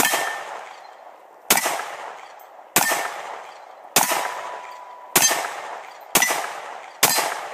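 Seven handgun shots fired at a steady pace, about one every second and a quarter, each trailing off in a long echo; several hits draw a brief metallic ring from the steel targets.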